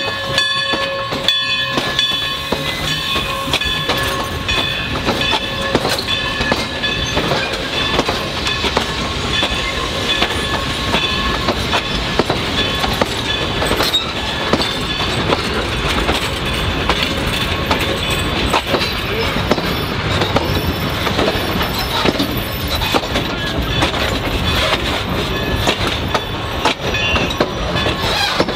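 Railroad passenger cars rolling past at slow speed, steel wheels clicking over the rail joints. A high metallic wheel squeal is held through roughly the first half and then fades out.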